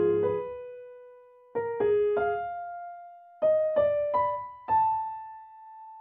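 Background music: a slow solo piano melody of single notes struck in small groups of two or three, each left to ring and fade.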